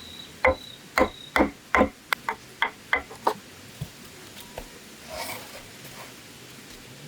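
A series of blows on bamboo: four heavy strikes about half a second apart, then five lighter, quicker strikes, then a couple of faint taps and a short rustle.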